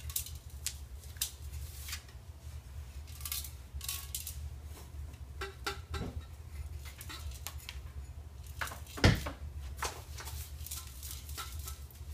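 Handling noise from an aftermarket exhaust muffler in its plastic wrapping: scattered crinkles and light clicks, with one louder thump about nine seconds in.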